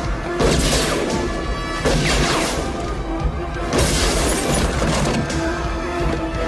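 Film soundtrack: music with steady held tones, broken by three loud crashing impacts, each trailing off briefly, about half a second, two seconds and four seconds in.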